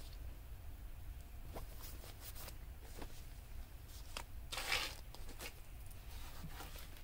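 Faint paper rustling and handling as the pages of a handmade paper junk journal are turned, a few short rustles with the loudest about two-thirds of the way through, over a low steady hum.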